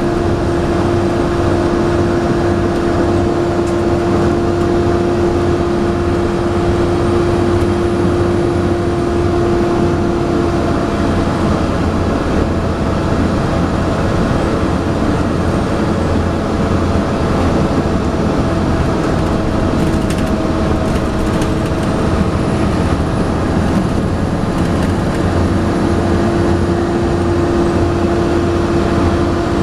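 Volvo B7TL double-decker bus under way, heard from inside: a six-cylinder diesel drone with the loud steady 'hoover' hum of the cooling fan over it. The hum sags slightly in pitch from about a third of the way in and rises back near the end, with a few brief rattles in the middle.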